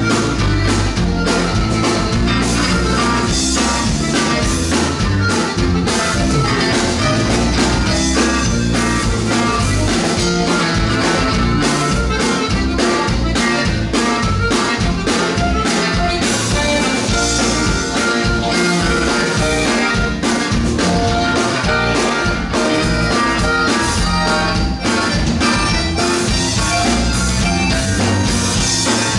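Live band playing with electric and acoustic guitars and a drum kit, loud and steady with a regular beat.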